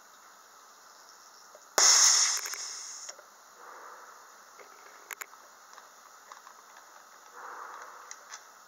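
A diesel compression tester's gauge being vented: a sudden loud hiss of released air about two seconds in, lasting about a second and fading, then a couple of sharp clicks.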